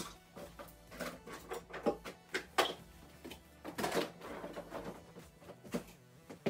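Irregular knocks, clicks and rattles of hair tools and product bottles being picked up and set down on a shelf.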